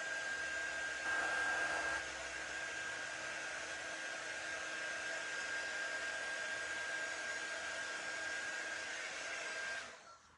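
Handheld electric blow dryer running steadily with a high whine, drying paint on a craft sign. It switches off near the end.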